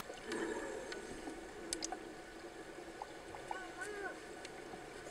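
Muffled underwater sound in a swimming pool, picked up by a submerged camera: faint gurgling with scattered small clicks and a few short chirps.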